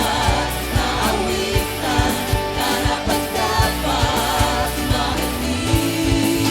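Worship song played by a band: a singer over sustained chords and bass, with a steady drum beat of about two hits a second.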